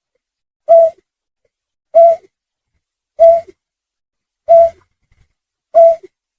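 Recorded snipe lure call: a short single-note call repeated five times, evenly spaced about a second and a quarter apart.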